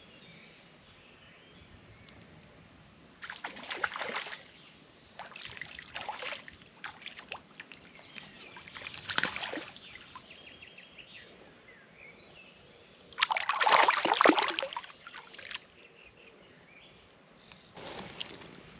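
Water splashing in five separate bursts of a second or two each, the loudest about two thirds of the way through.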